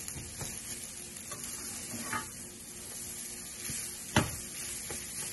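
Rice frying in a nonstick pan with a light sizzle while a plastic spatula stirs and scrapes through it. There are a few sharp knocks of the spatula against the pan, the loudest a little after four seconds in.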